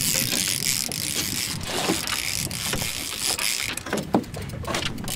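Fishing reel being cranked under the load of a hooked fish, its gears clicking, over a steady hiss of wind and water.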